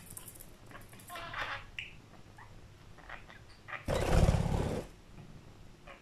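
Budgerigar's wings flapping close by as it takes off and flies onto a cat's back: one loud, fluttering burst about four seconds in, lasting about a second. A few soft chirps come earlier.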